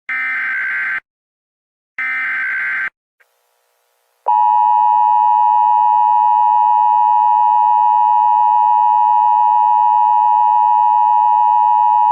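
Emergency Alert System signal: two harsh, buzzing digital data bursts of the SAME header, each about a second long, then, about four seconds in, the steady two-tone EAS attention signal, which holds for about eight seconds and cuts off abruptly.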